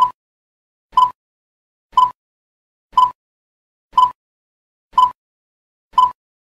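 Quiz countdown timer ticking once a second: seven short, sharp pitched ticks, evenly spaced, each dying away quickly.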